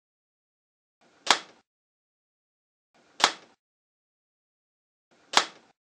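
Handmade wooden rubber band gun with a rod drive firing: three sharp snaps about two seconds apart, each a trigger pull releasing a rubber band.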